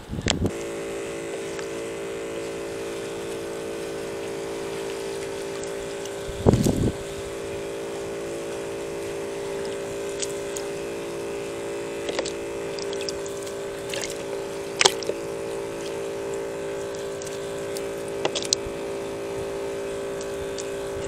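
A steady, unchanging mechanical hum of a running engine or motor, with a low knock about six and a half seconds in and a few faint clicks.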